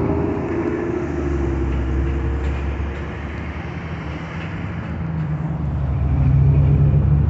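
Road traffic rumbling past, a steady low drone with one vehicle's engine growing louder about five seconds in.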